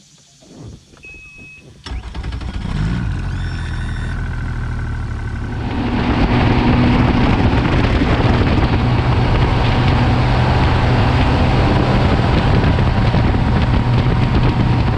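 Bass boat's outboard motor starting about two seconds in, after a short beep, then idling briefly. About six seconds in it is throttled up and runs at speed, its steady drone under a loud rush of wind and water.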